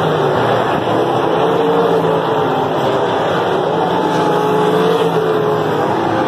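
A pack of winged sprint cars racing on a dirt oval: several V8 engines running together at high revs. Their pitches rise and fall and overlap as the cars come off and go into the turns.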